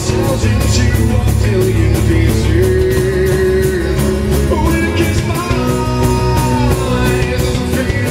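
A small acoustic rock band playing live: acoustic guitar, electric bass and a second guitar strummed in a steady rhythm of about four strokes a second, with a man singing long held notes over them.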